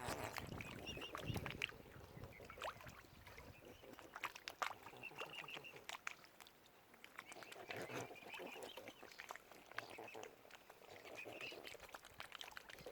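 Waterfowl calling, a scattered run of short calls and clicks with higher chatter over them.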